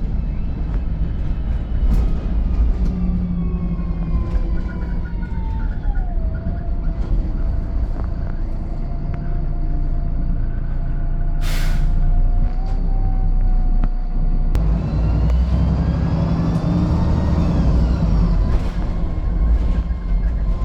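VDL SB200 Wright Pulsar 2 single-decker bus heard from on board: the engine runs with a whine that falls as the bus slows and then holds steady. About halfway through there is a short hiss of air, and the whine rises again as the bus pulls away.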